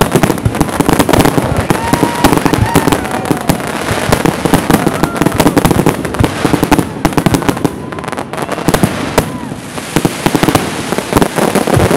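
Fireworks display: aerial shells bursting in a dense, near-continuous run of bangs and crackling.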